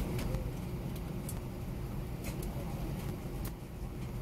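Airbus A320 heard from inside the cabin, taxiing with its IAE V2527 engines at idle: a steady low rumble with a faint hum above it. A few light clicks and rattles come through it.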